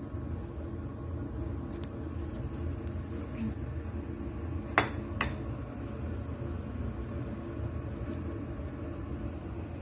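A china plate clinking twice, two sharp light clinks under half a second apart near the middle, over a steady low hum.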